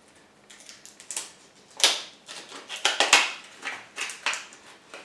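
A small plastic drill-bit case and its packaging being handled as a bit is taken out: irregular sharp clicks and crinkling rustles, the loudest about two and three seconds in.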